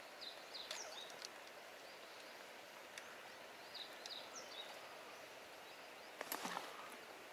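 Quiet outdoor ambience with a small bird chirping in short high notes, in two little runs near the start and about four seconds in. About six seconds in comes one brief, louder noise.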